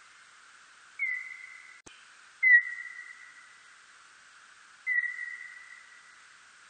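Calls of a birdlike noctule bat (Nyctalus aviator): three high whistle-like calls, each starting sharply with a quick downward slide, then holding one steady pitch as it fades. The second call is the loudest, and all three sit over a steady hiss.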